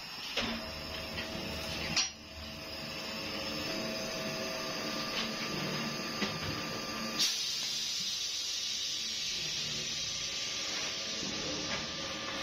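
Blow molding machine's extruder running steadily: a machine hum with a few held tones, broken by a few sharp knocks.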